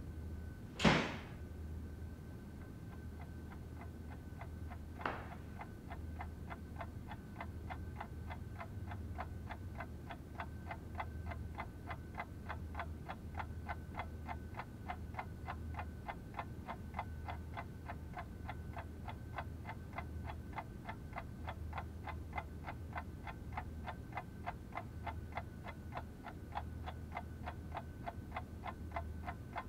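Wall clock ticking fast and evenly, several ticks a second, over a low hum and a faint steady high tone, starting about six seconds in. Near the start a sharp sound sweeps quickly down in pitch, and a smaller one follows about five seconds in.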